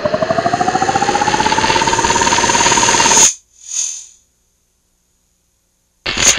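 Electronic whine sound effect: a loud, rapidly pulsing tone that rises in pitch and speeds up, levels off, then cuts out abruptly about three seconds in. A short hiss follows, then silence, and near the end a brief burst of noise.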